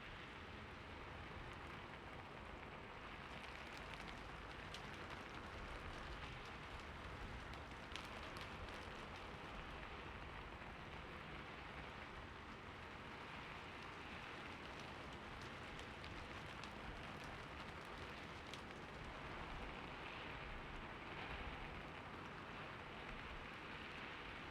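Heavy rain falling steadily, an even hiss with scattered sharper drop hits.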